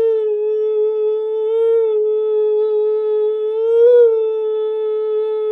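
Beatboxer's vocal imitation of a mosquito: one long, steady, nasal hum with a slight waver in pitch, swelling up briefly twice.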